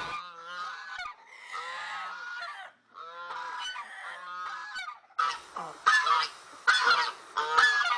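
Geese honking over and over, quieter at first and much louder from about halfway through.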